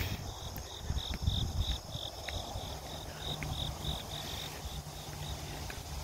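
Insects calling: a high-pitched chirping repeated evenly at about four chirps a second, fading out near the end. Underneath are low rumbling and, from about halfway, a faint steady low hum.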